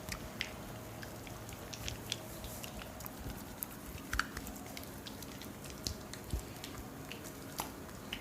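Oiled hands massaging skin and hair: irregular small wet clicks and squelches over a faint steady hum.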